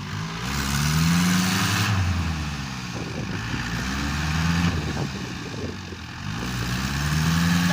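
Excavator's diesel engine running as it works, its pitch rising and falling about every three seconds.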